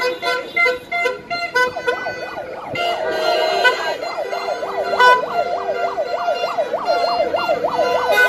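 Car horns honking in short rhythmic beeps, then from about two seconds in a fast yelping siren wail that rises and falls about three times a second over a steady horn tone.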